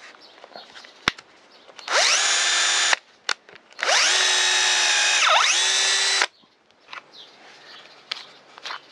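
Bosch PSB 1800 Li-2 18 V cordless drill/driver running twice while drilling a 3 mm bit into pine: a one-second burst, then a run of about two and a half seconds. The motor whine rises in pitch as it spins up each time, and midway through the second run dips briefly in pitch and recovers.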